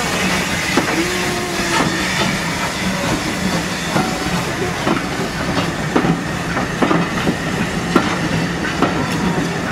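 Railway coaches of a steam-hauled train rolling past close by, their wheels clicking irregularly over rail joints over a steady rumble.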